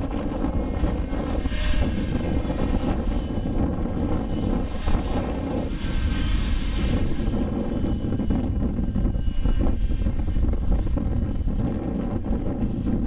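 Align T-Rex 600 radio-controlled helicopter in flight: its rotor and motor whine rising and falling in pitch as it manoeuvres, over wind rumbling on the microphone.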